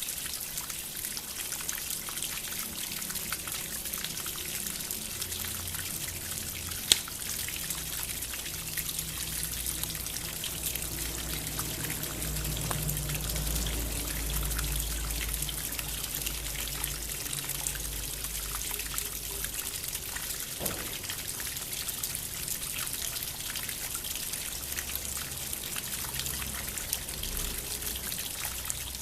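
Water trickling and splashing steadily from a bamboo water fountain, with soft low held tones underneath and a single sharp click about seven seconds in.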